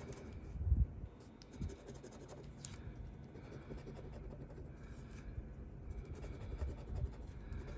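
Scratch-off lottery ticket being scratched off in quick, short strokes, with a soft low bump a little under a second in.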